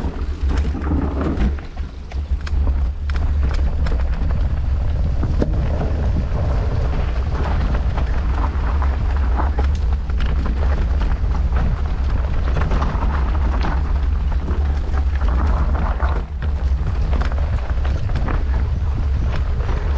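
Mountain bike ridden fast downhill on a trail, with its tyres running over the ground and the bike rattling in many small knocks. Wind buffets the microphone in a steady low rumble throughout.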